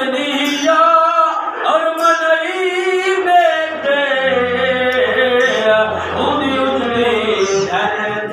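A man chanting in a sung melody, holding long notes that slide up and down, as in naat verse sung in a sermon. A low steady hum sits underneath from about halfway through.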